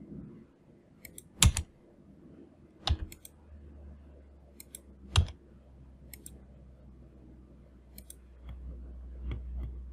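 Scattered clicks of a computer mouse and keyboard, about ten in all, two of them louder, over a low steady hum.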